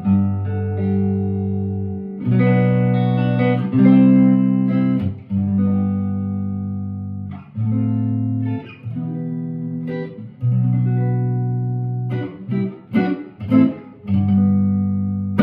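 1958 Guild Aristocrat hollowbody electric guitar being played: chords strummed and left to ring, a new one every second or two, with a quick run of short, choppy strokes near the end.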